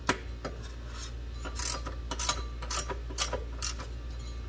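Hand socket ratchet clicking in short back-and-forth strokes, about two a second, working a fastener that is still too tight to turn by hand.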